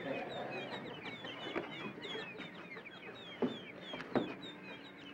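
Baby birds in a nest cheeping, a rapid run of short high chirps. Two sharp knocks stand out about three and a half and four seconds in.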